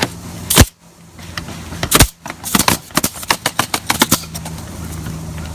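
Roofing work on asphalt shingles: two loud sharp bangs, then a quick, uneven run of clicks and taps, over a steady low hum.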